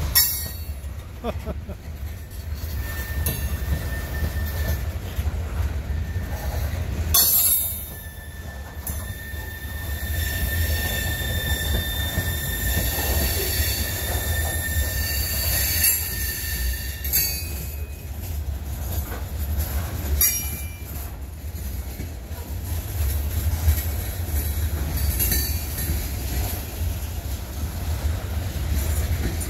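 A freight train rolling past with high-pitched wheel squeal, once briefly and then held for about nine seconds, over a steady low rumble. Several sharp clunks break in along the way.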